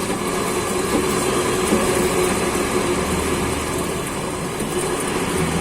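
Worn wheel bearing on a Nissan Frontier humming steadily as the raised wheel spins. It is a dry bearing that has run out of grease and is starting to seize.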